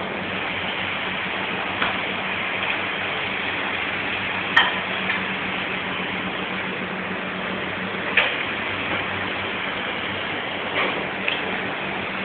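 Steady rushing noise of kitchen ventilation with a low hum, broken by a few sharp clicks and knocks, the loudest about four and a half and eight seconds in.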